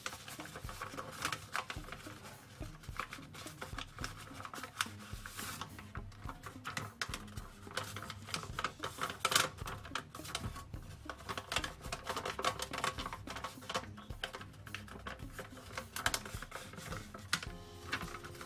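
Folded paper crinkling and crackling in quick, irregular clicks as hands open out and shape a small paper gift bag.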